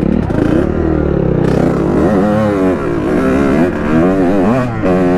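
Honda CR two-stroke dirt bike engine revving as it accelerates, its pitch rising and falling over and over with the throttle and gear changes.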